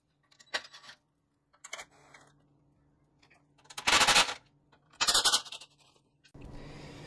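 Impact driver hammering in short bursts on a seized Allen bolt holding a motorcycle exhaust. The bolt won't come loose. Two small bursts come first, then two loud bursts of about half a second each, and a steady hiss begins near the end.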